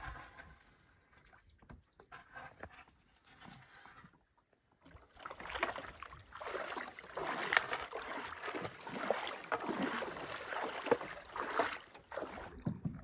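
Water splashing and sloshing as a person wades through a shallow creek ahead of an aluminum canoe, the irregular splashes starting about five seconds in. Before that, only a few light knocks and soft water sounds.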